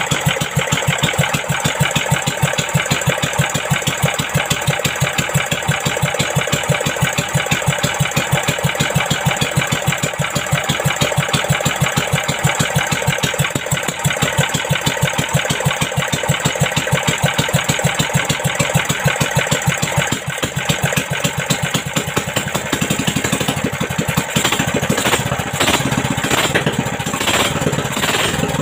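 Yamma 18 hp gasoline boat engine, fitted with a 28 mm Mikuni open carburetor, running steadily at idle. About five seconds before the end it speeds up and runs louder.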